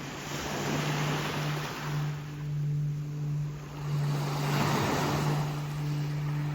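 Sea waves washing in, the surf swelling about a second in and again past the middle. Under it runs a steady low hum, like a motor.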